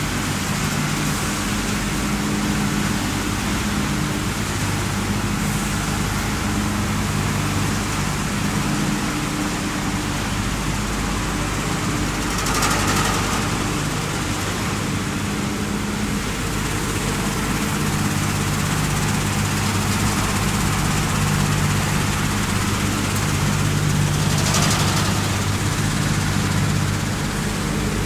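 Wood pellet production line machinery running: a steady drone of motors, fans and conveyors with a low hum, and two brief louder rushes, about halfway through and near the end.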